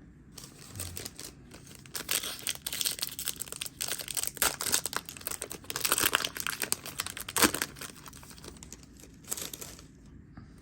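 A foil trading-card booster pack crinkling and being torn open: a run of dense, irregular crackles and rustles, with one more short crinkle near the end.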